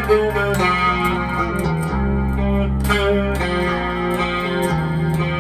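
Electric guitar with new Invader-clone humbucker pickups, a 1990s Jackson Kelly KE3, played with a clean, effected tone in an instrumental passage of a song. It rings over a steady low bass and regular percussive clicks.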